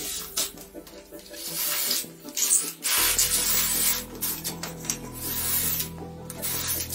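Cordless drill running in uneven spurts, first driving into plywood and then, from about three seconds in, boring a hole through a plywood sheet.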